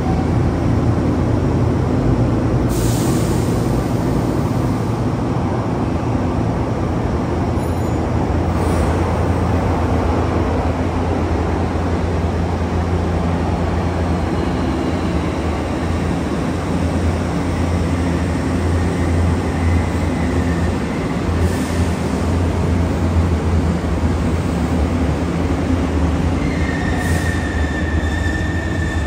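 A Sanyo Electric Railway 3050 series resistance-controlled electric train pulling out of the station, with a steady heavy rumble of traction motors and wheels on rail. A high-pitched wheel squeal sets in near the end.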